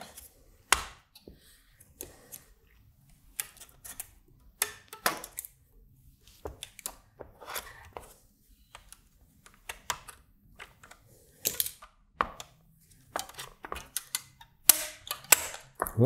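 Irregular clicks, taps and knocks from a circuit board and acrylic front panel fitted with toggle switches being turned over and handled on a cutting mat, with the loudest knocks near the end.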